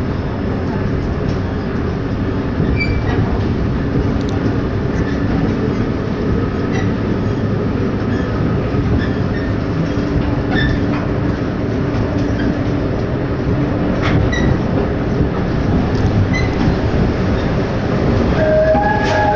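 Interior running noise of a Seoul Metro Series 4000 electric train with a refitted inverter: steady wheel-and-rail rumble under a faint motor whine, with scattered short clicks and squeaks from the wheels. Near the end a stepped series of higher tones begins.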